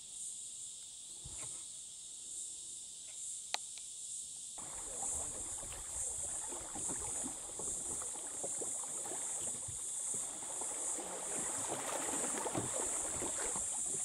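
Kayak being paddled: paddle strokes and water splashing and rushing along the hull, starting about a third of the way in. A steady high insect chorus runs under it throughout.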